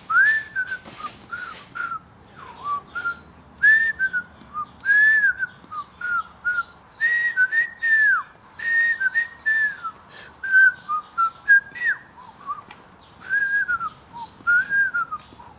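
A man whistling a wandering tune in short phrases of quick up-and-down notes, with a little breath noise on each note.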